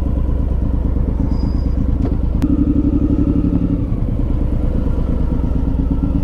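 Suzuki Boulevard M109R's 1783 cc V-twin engine running steadily at an even, unchanging pitch.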